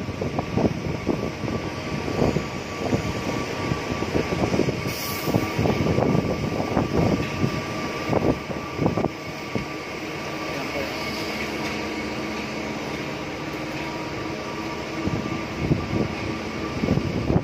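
Construction-site work noise: irregular knocks and clatter over a steady mechanical hum with a faint whine. The knocks ease off for a few seconds past the middle, then return near the end.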